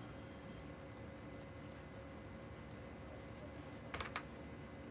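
Faint scattered clicks of typing on a computer keyboard, with two louder clicks about four seconds in.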